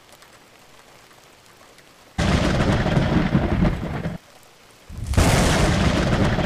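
Thunder with heavy rain: two loud, deep rumbling bursts, the first about two seconds in and the second about five seconds in, each starting and stopping abruptly, over a faint steady hiss.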